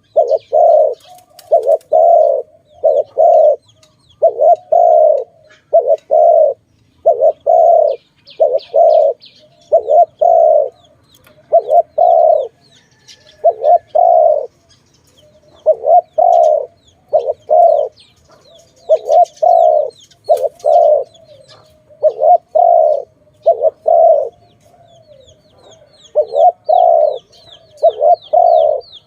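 Spotted dove (tekukur) cooing over and over, loud rounded coo notes in short groups of two to four with brief pauses between. Faint high twittering of small birds comes in a few times behind it.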